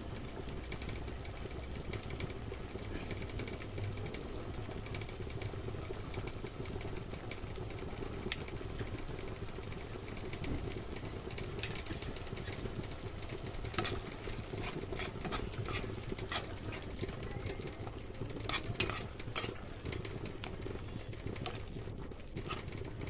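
Tomato and oyster sauce sizzling and simmering in a pan. A little over halfway in, a metal spoon stirring it scrapes and clinks against the pan a number of times.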